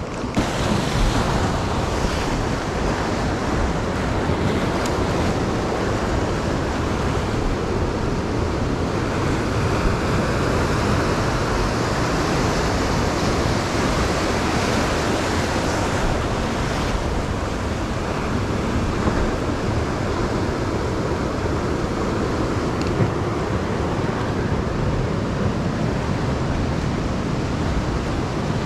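Sea surf washing and breaking against rocks, a steady rushing wash of waves, with wind buffeting the microphone.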